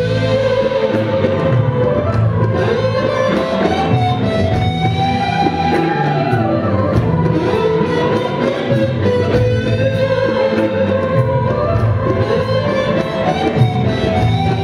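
Live band playing a dangdut song. An electric guitar carries a melody line of held notes that slide up and down over bass and drums.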